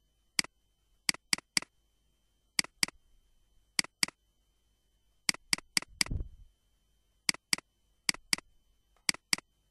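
Computer mouse button clicks: sharp, short clicks, mostly in pairs about a quarter second apart, with a run of four just before six seconds in. A soft low thump about six seconds in.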